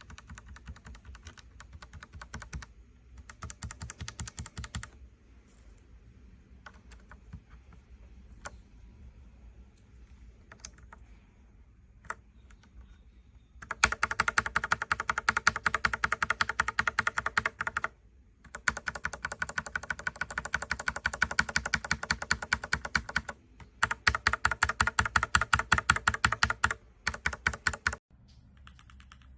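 Mechanical keyboard fitted with factory-lubed Gateron Pro Milky Yellow linear switches, being typed on. Softer, sparser keystrokes come first; then, about halfway through, fast continuous typing starts and runs in four bursts with brief pauses between them.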